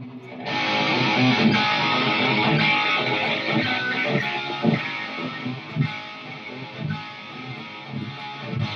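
Electric guitar played through a guitar amplifier, coming in loud about half a second in.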